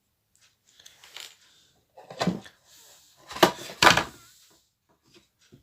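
Handling sounds on a workbench: some light rustling, then a few sharp knocks about two, three and a half and four seconds in, and a couple of faint clicks near the end.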